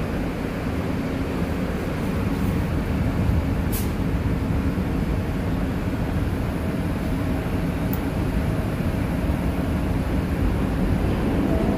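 Steady low rumble and hum of an R62A subway train standing in the station with its doors open, its equipment running. Two brief sharp clicks, about four and eight seconds in.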